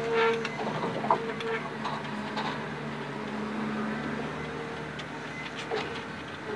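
Komatsu 895 forwarder's diesel engine and crane hydraulics humming steadily, heard from inside the cab, with a few knocks and clatters as the grapple handles logs.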